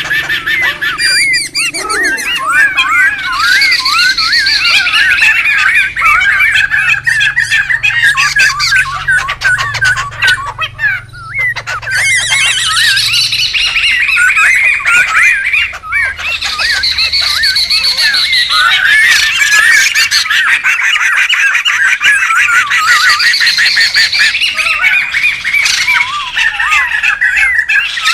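A group of laughingthrushes (poksay) calling noisily: rapid, overlapping chattering and squawking notes that go on almost without a break, easing off briefly about eleven seconds in and again around sixteen.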